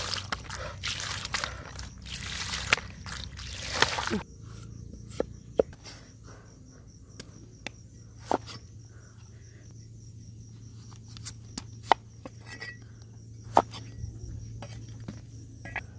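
Water splashing and trickling as peeled potatoes are rinsed by hand, stopping after about four seconds. Then a cleaver cuts potato against a round chopping block, single sharp knocks a second or two apart.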